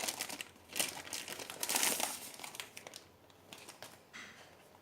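Packaging being handled and opened: irregular crinkling and rustling, busiest in the first two to three seconds, then dying down to faint handling rustles.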